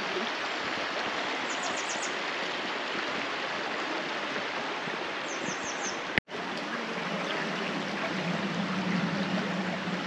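Shallow river running over rocks, a steady rush of water. A small bird calls twice with a quick run of four high notes. There is a sharp click and a split-second dropout about six seconds in.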